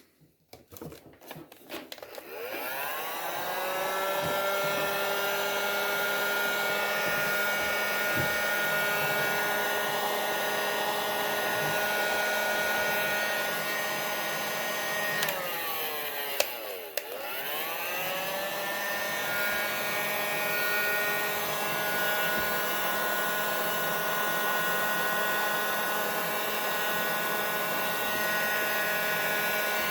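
Electric hot-air blower (heat gun type) switched on, its fan motor winding up to a steady whine over the first couple of seconds. It is heating the stiff vacuum hose end to soften it for a tight fit. Just past halfway it briefly slows and winds back up, then runs steadily again.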